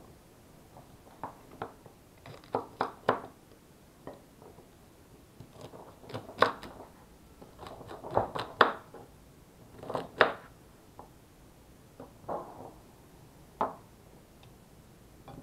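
Knife chopping celery stalks on a wooden cutting board: a string of crisp crunching cuts, each ending in a knock of the blade on the board, coming at irregular intervals with short pauses between groups.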